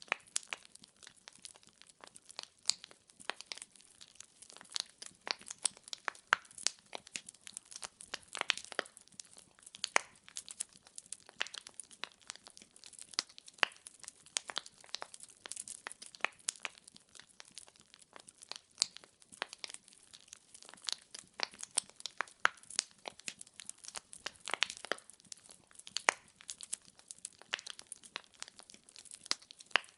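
Burning firewood crackling: a continuous run of sharp snaps, several a second, over a faint hiss.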